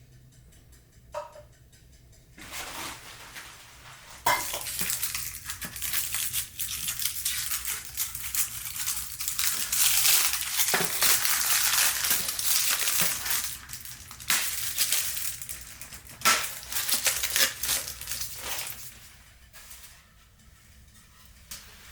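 Dense crunching and crackling, many sharp strokes close together, starting a couple of seconds in, loudest through the middle and fading near the end.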